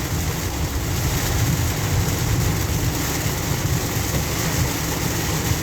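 Steady road noise inside a car driving on a rain-soaked road with standing water: tyre hiss and spray over a low, even rumble.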